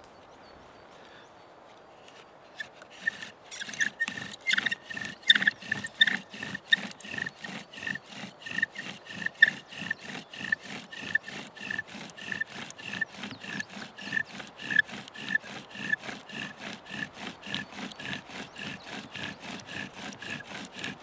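Bow drill in use: the wooden spindle, spun back and forth by the bow's string, rubs and squeaks in the notch of the wooden hearth board. It starts about two and a half seconds in and keeps a quick, even stroke rhythm. This steady drilling grinds out hot wood dust toward an ember.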